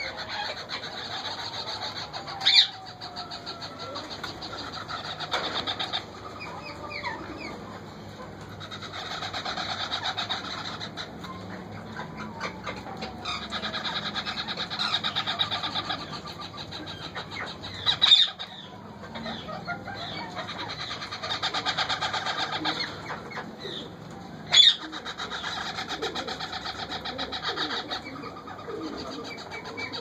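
Indian ringneck parrot chicks giving rapid, pulsing begging calls in bursts of a few seconds while being fed at the nest box. Three short, sharp, loud squawks cut in along the way.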